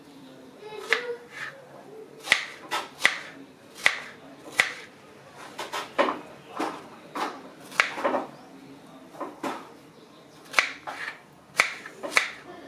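Knife slicing strawberries on a plastic cutting board: a string of short, sharp, irregular taps as the blade strikes the board.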